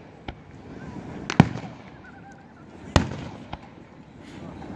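Aerial fireworks shells bursting: two loud bangs about a second and a half apart, with smaller pops shortly before the first and just after the second, each bang trailing off in echo.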